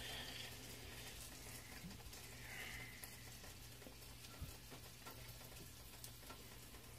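Near silence: quiet kitchen room tone with a steady low hum, faint hiss and a few faint soft clicks.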